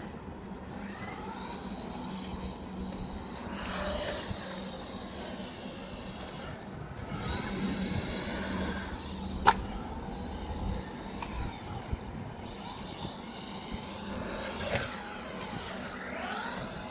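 Brushed 380 electric motor of a 1:18-scale RC truck, its whine rising and falling in several bursts, over a steady low hum. One sharp click about nine and a half seconds in.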